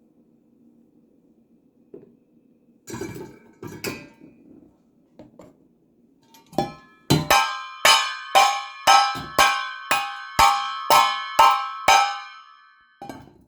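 A couple of clattering knocks, then a hard ringing object, like glass or metal, struck about ten times at about two strikes a second, each strike leaving a clear ringing tone that fades before the next.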